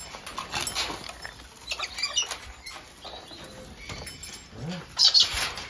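Hanging steel chain curtain rattling and clinking as someone pushes through it, with a louder burst of jangling near the end.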